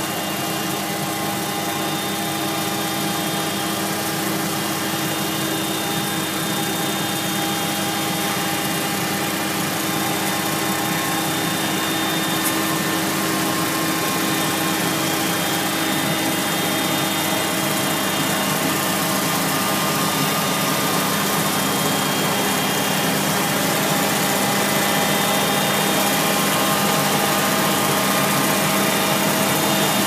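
Ride-on vacuum machine's engine and suction fan running steadily with a constant hum, growing gradually louder as it drives closer.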